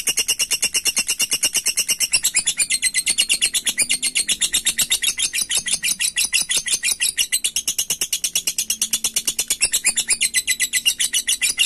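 Lovebird 'ngekek': one long, unbroken chattering trill of rapid, high, harsh notes, about ten a second, kept up without a pause.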